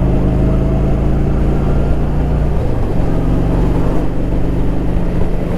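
Motorcycle engine running steadily while riding, with road and wind rumble; the engine note dips briefly about two and a half seconds in.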